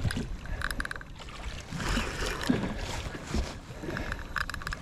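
A spinning reel being worked against a hooked fish, giving short runs of rapid clicking. Wind and water noise from the jet ski at sea run underneath.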